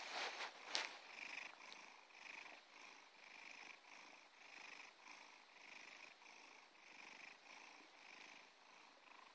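A cat purring faintly, the purr swelling and fading about twice a second with its breaths in and out. Scratchy handling rustles and clicks in the first second.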